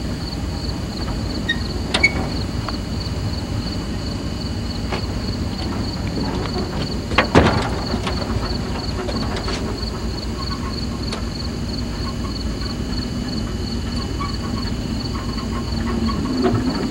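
Insects chirping, a high, evenly pulsing trill, over a steady low rumble, with one sharp knock about seven seconds in.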